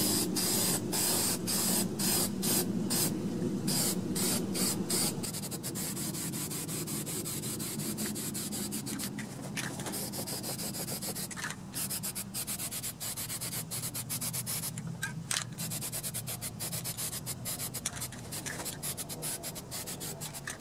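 Aerosol can of Rust-Oleum Rust Reformer hissing in many short spray bursts, one after another, as a rust-converting primer coat goes onto rusty sheet-metal parts. The bursts are longer and more spaced in the first few seconds, then come quicker and shorter.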